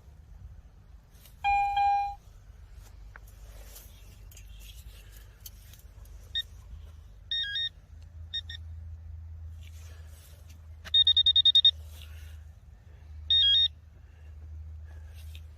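Metal detector signal tones: a loud lower-pitched tone about one and a half seconds in, then short high-pitched beeps, a fast run of about eight chirps around eleven seconds in, and one more beep near the end, over a steady low rumble.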